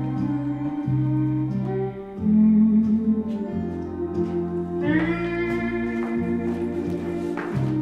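Music: sustained chords over a bass line that changes note every second or so, with a brighter upper part coming in about five seconds in.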